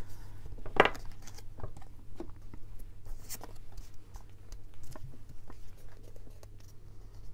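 Scattered soft clicks, taps and paper rustles of craft materials being handled, with one sharper click about a second in.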